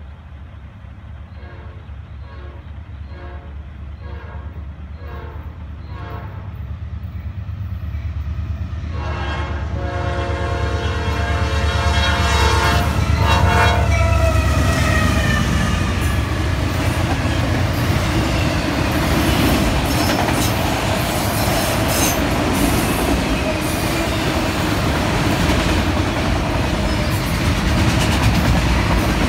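A Norfolk Southern freight train's lead locomotive, a GE AC44C6M, sounds its horn as it approaches the crossing, its diesel rumble growing louder until it passes about halfway through. The horn then stops, and the steady rumble and clickety-clack of boxcars and autorack cars rolling past take over.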